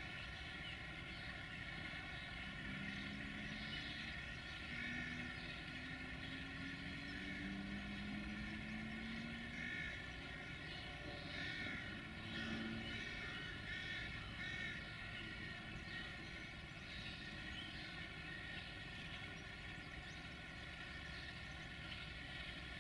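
Steady whine of a camera drone's propeller motors, many even tones held level, with a few faint, slowly rising low tones in the first half.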